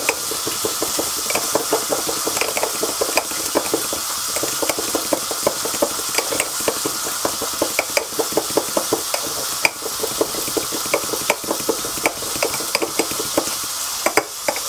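A utensil stirring mayonnaise and Sriracha in a small glass, clicking quickly and irregularly against the glass, over a steady sizzle of swordfish searing in a pan.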